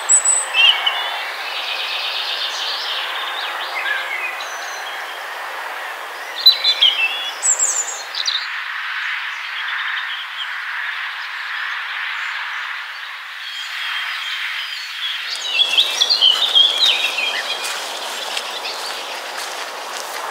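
Songbirds singing in spring woodland, a European robin's song at the start, with further bursts of song a few seconds in and again about two thirds of the way through, over a steady background hiss.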